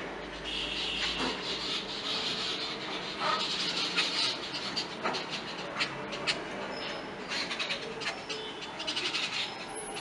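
Jungle babblers and a common myna calling: dense, harsh chattering for the first few seconds, then scattered sharp chirps with a few short whistled notes.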